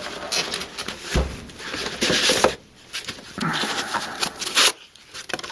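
Handling of packaging and parts: several bursts of rustling, with a dull knock about a second in.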